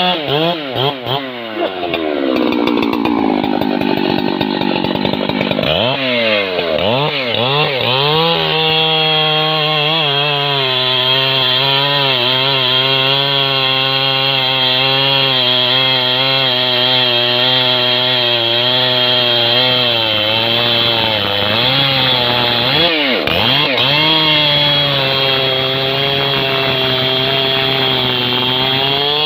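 Husqvarna 3120XP two-stroke chainsaw cutting through a large trembesi (rain tree) log, the engine held at steady revs under load for long stretches. The revs swing up and down several times in the first few seconds, and dip and recover briefly about two-thirds of the way through.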